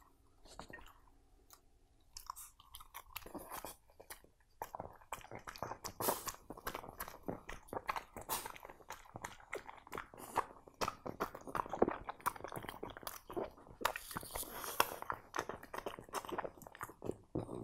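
French bulldog chewing food, a rapid, irregular run of crisp crunches. The crunches are sparse for the first few seconds and dense from about five seconds in.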